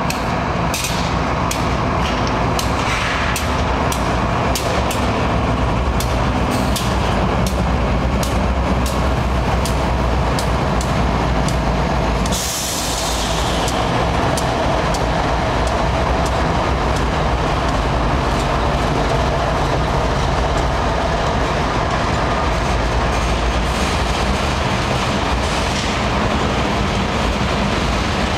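BNSF freight train passing close by: diesel locomotives rumbling past, then covered hopper cars rolling by with a steady rumble of wheels on rail. Regular clicks sound through the first dozen seconds, and there is a short hiss about twelve seconds in.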